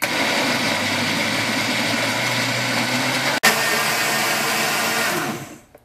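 Countertop blender motor running at speed, blending stale bread rolls soaked in milk with eggs, sugar and tapioca into a pudding batter. The steady sound drops out for an instant a little past halfway, then runs on and dies away near the end.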